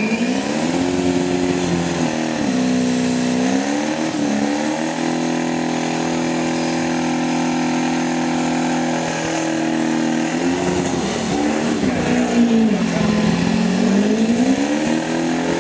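Turbocharged Holden VN Commodore engine revving hard through a burnout, with its rear tyres spinning. The revs are held high for several seconds, sag and climb back twice, over a steady hiss of tyre noise.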